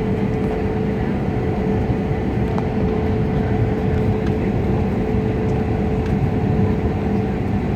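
Airbus A320-family airliner heard from inside the cabin while taxiing onto the runway: a steady engine rumble with a constant hum tone running through it.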